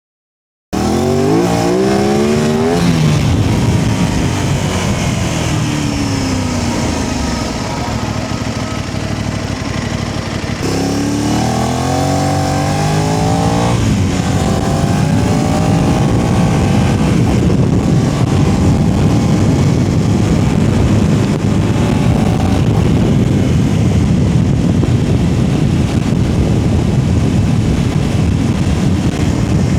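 Aprilia RS660 parallel-twin engine cutting in abruptly and revving up as the motorcycle accelerates, then easing off with falling revs. About ten seconds in it pulls hard again with rising revs and a shift near fourteen seconds, then settles into a steady cruise with a loud rush of wind.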